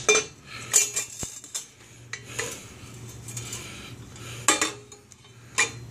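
Chrome exhaust pipe parts, a cutout pipe and a motorcycle muffler, being handled and knocked together: a handful of sharp metallic clinks and knocks at irregular intervals.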